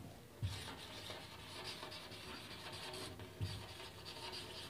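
Marker pen writing on a whiteboard: a faint rubbing in short strokes, with two soft knocks.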